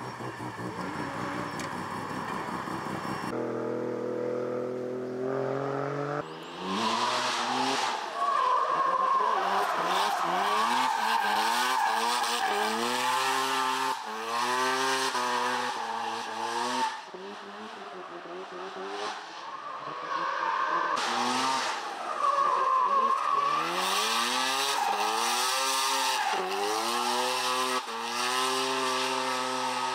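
Mazda RX-7 FD drifting: its engine revs rise and fall again and again under hard driving, with tyres squealing through the slides.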